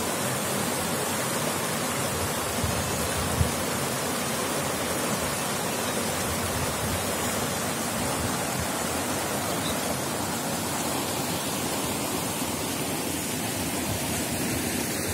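Shallow mountain river rushing over boulders and small cascades, a steady rush of water. One brief low thump about three and a half seconds in.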